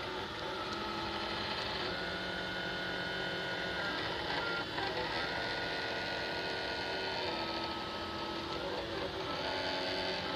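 Desktop filament (FDM) 3D printer running a print: its stepper motors hum in several steady tones. The tones jump to new pitches every second or two as the print head and bed change speed and direction.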